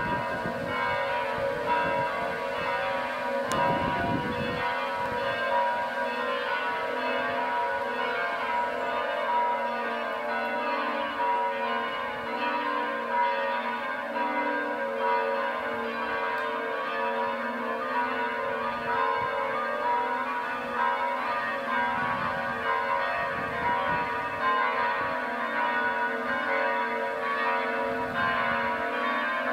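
Church bells of Radu Vodă Monastery ringing without pause, several bells of different pitch sounding together in a dense, overlapping peal.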